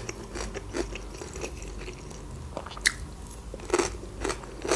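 Close-miked chewing of crunchy fresh cucumber, with irregular wet crunches, the sharpest about three seconds in and another near the end.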